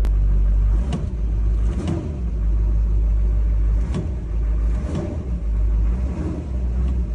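6.6-litre LLY Duramax turbo-diesel V8 running steadily with a low rumble, now starting and running on a freshly refurbished fuel injection control module (FICM) after a no-start fault.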